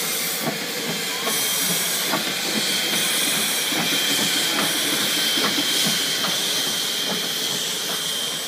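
Steam locomotive No. 448 moving slowly past with a steady hiss of escaping steam, a high ringing note held in the hiss. Faint clicks come about once a second from the moving locomotive.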